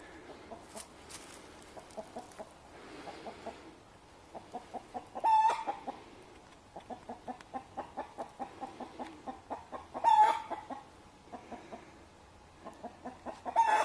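Domestic hens clucking in quick runs of short notes, with a louder squawk that ends a run three times: the alarm cackle of hens with a fox at their run.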